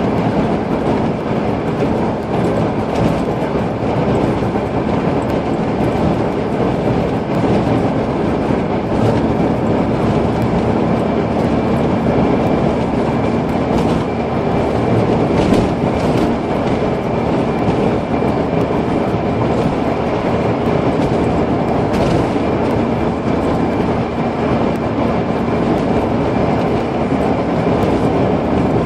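Steady road and engine noise inside a car's cabin while cruising: the engine is running at a constant speed under light load, with tyre rumble and a steady hum.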